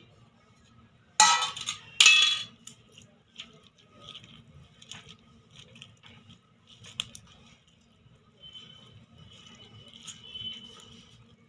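Two loud metallic clinks from a stainless-steel plate, a little over a second in and again a second later, each ringing briefly. Then soft scattered clicks and rustles as hands toss chopped boiled jackfruit, garlic and onion around the plate.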